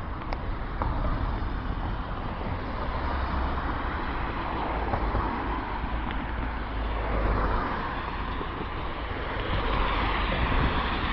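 Road traffic: cars driving past on a multi-lane road, a steady tyre and engine noise that swells as each one goes by, heard through a mobile phone's small microphone with a low rumble underneath.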